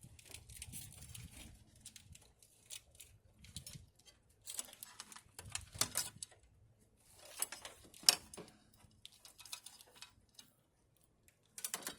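Irregular clicks, taps and scraping rustles of hand work with tools and parts, with a sharper click about eight seconds in and a brief pause near the end.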